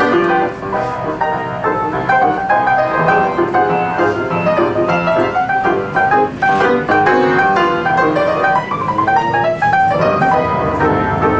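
Upright piano played by hand, a ragtime piece with a dense stream of quick notes in both hands.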